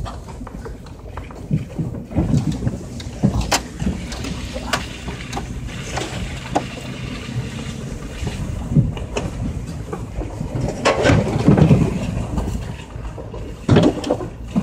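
4x4 truck driving slowly over a rutted dirt track, heard from inside the cab: a steady low engine and tyre rumble with knocks and rattles as the body bounces over ruts, the heaviest jolts about three-quarters of the way through and again near the end.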